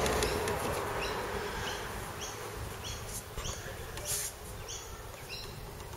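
Short, high chirps repeating about twice a second, each a quick upward sweep, from a small animal. A single click sounds about four seconds in.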